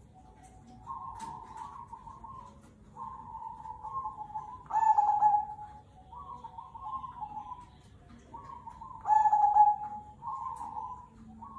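Zebra dove (perkutut) cooing in repeated rolling phrases. Two louder, drawn-out notes come about five and nine seconds in.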